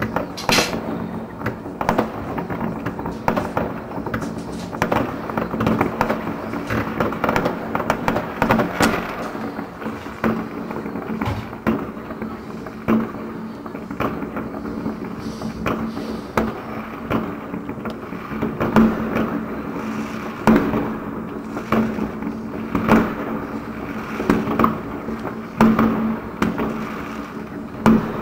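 Many fireworks going off at once: a near-continuous run of bangs and crackles, with louder bangs every second or two, over a steady low hum.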